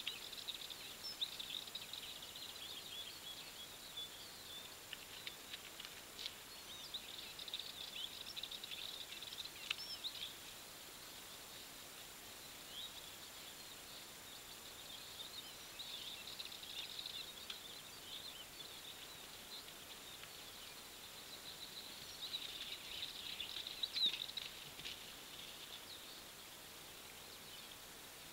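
Small songbirds singing, a rapid high twitter that comes in bouts with short lulls between, over a faint steady high-pitched tone.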